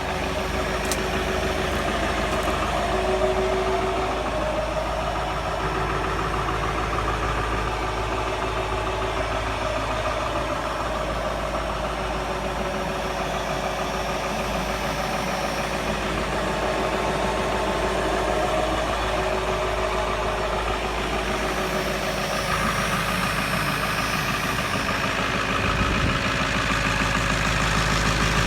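Car engine idling steadily after a cold start, having sat unstarted for four weeks in 22-degree cold.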